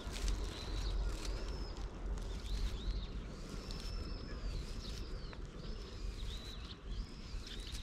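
A bird giving a run of high, arching chirps, about one a second, over a steady low rumble and the soft rustle of a grooming brush stroked through a cat's fur.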